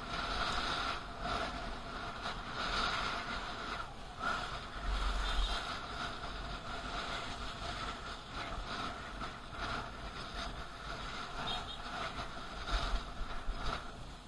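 Wind and road noise picked up by a camera mounted on a moving bicycle riding beside traffic, with a steady high whine under the rushing noise and occasional bumps.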